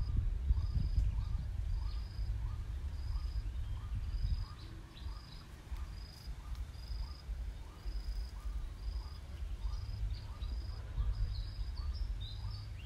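Low handling noise from a plastic toy elephant being held and worked apart by hand, heaviest in the first four seconds and quieter after. A faint short chirp repeats about every two-thirds of a second throughout.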